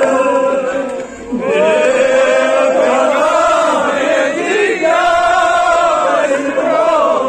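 Male voices chanting a Kashmiri noha, a Shia mourning lament, in long held sung lines, with a short break about a second in.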